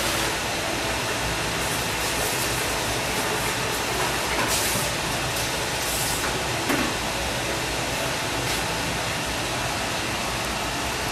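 Pot of soup coming to a boil under a glass lid on a gas stove: a steady rushing hiss of bubbling broth and burner flame, with a few faint clicks.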